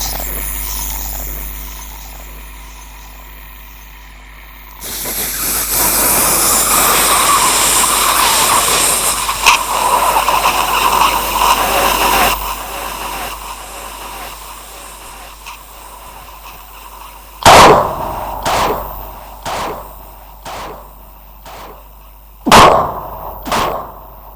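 Ghost sound effects: an eerie pitched drone fades out, then a loud rushing hiss runs for about seven seconds. Near the end come two sharp booming hits, each trailing off in a series of fading echoes.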